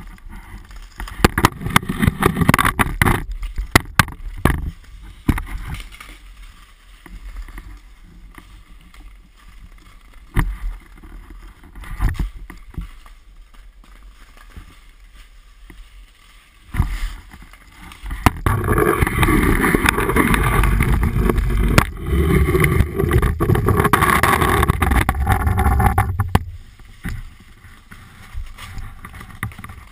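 Ice skates and a hockey stick on natural ice, recorded by a camera on the stick: scattered sharp knocks and scrapes, a few single knocks through a quieter middle stretch, then a long loud rush of scraping noise for about eight seconds past the middle before it drops away.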